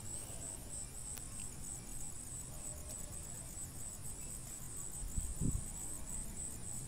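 A cricket chirping steadily in a fast, even pulse, with a few faint clicks and a soft low bump about five seconds in as the plastic sprayer is handled.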